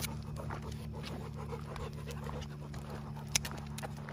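Dog panting in quick, soft breaths over a steady low hum, with one sharp click about three and a half seconds in.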